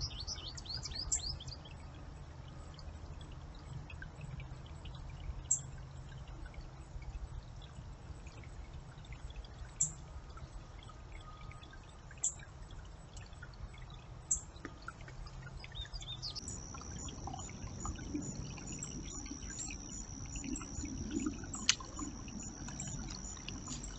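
A shallow brook trickling steadily, with a few sharp clicks. About two-thirds of the way in, a steady high-pitched tone starts and continues.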